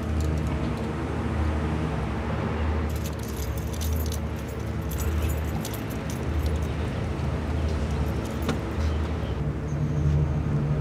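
Keys jangling in a man's hands as he walks to his car, in clusters of light metallic clicks. Underneath runs a steady low hum that swells and fades about once a second.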